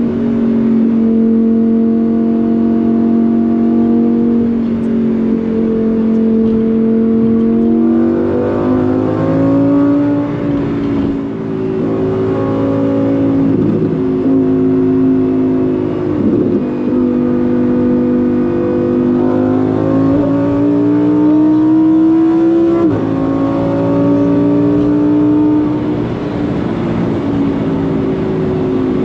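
Lamborghini Huracán Performante's naturally aspirated V10 running at a steady pitch while cruising. About eight seconds in it begins accelerating: the pitch climbs, then drops sharply at upshifts several times.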